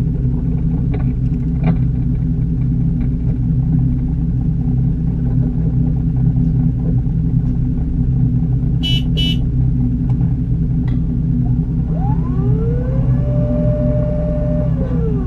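Boat engine running with a steady low drone. About twelve seconds in, an electric fishing reel's motor whines up, holds one pitch for a couple of seconds, then winds down as it hauls in the line. Two short high beeps sound about nine seconds in.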